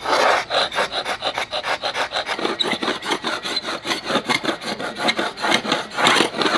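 Hand scraper scraping loose old paint off a yacht's gel-coated fibreglass hull in rapid short rasping strokes, several a second.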